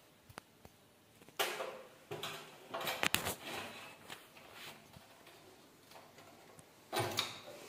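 Pull-out bottle basket's metal frame and runner channels clattering and scraping as it is worked into the kitchen cabinet: a few light clicks, then short bursts of sliding, rattling noise about a second and a half in, around three seconds in with sharp clicks, and again near the end.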